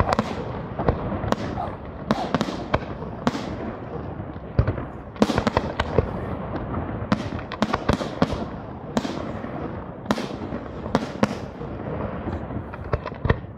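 Aerial firework shells launching and bursting in quick succession: sharp bangs, often in close pairs, about one or two a second, over a continuous noisy background.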